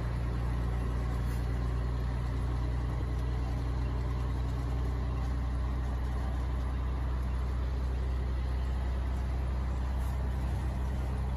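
Scania truck's diesel engine running steadily, heard from inside the cab while cruising, with a steady low hum and road noise and no change in engine speed.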